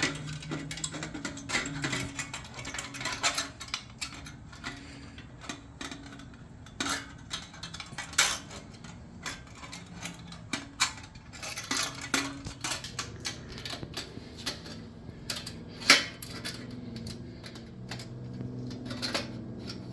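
Irregular metallic clicks and clinks of a hand tool working a clamp screw on a motorcycle exhaust heat shield, with one sharper clink about 16 seconds in.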